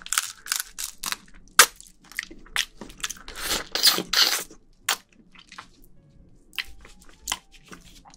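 Close-miked eating of spicy marinated raw crab: the crab is bitten and sucked, with a quick run of sharp crunches in the first two seconds, a longer wet stretch around three to four seconds in, then fainter chewing.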